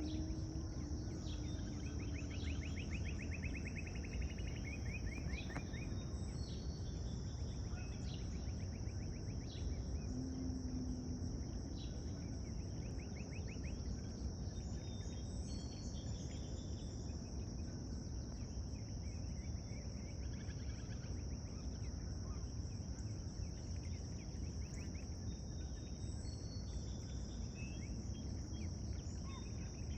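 Outdoor pond ambience: a steady, high-pitched drone of insects, with short bird chirps and fast rattling trills scattered through it, over a constant low background rumble.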